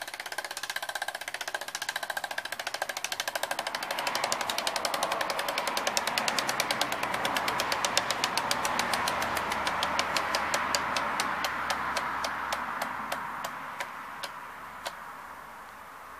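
Freehub of a Xentis Mark 1 carbon rear wheel ticking as the wheel spins freely and coasts down, over a steady whir. The rapid clicking gradually slows and stops near the end.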